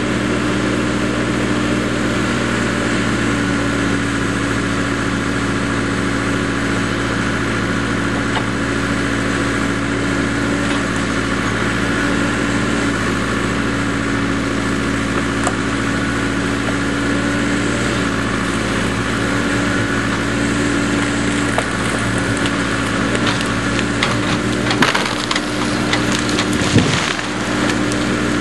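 Case 580 backhoe loader's engine running steadily while it pushes over a tall sycamore. Near the end, wood cracks and splinters in a quick series, and there is a crash as the tree comes down.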